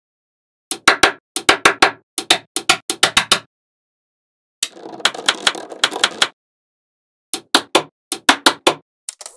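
Magnetic balls clicking sharply as they snap together, in quick runs of several clicks. About halfway through there is a longer rattling clatter of many balls together.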